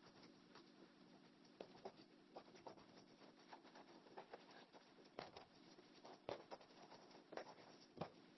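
Very faint pencil writing on paper: soft scratching with a few light ticks scattered through, the clearest a little past five seconds, around six seconds and near the end.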